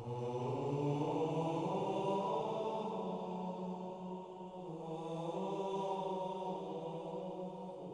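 Background music of a low chanted vocal drone, held on long steady notes, its pitch stepping up once about a second and a half in.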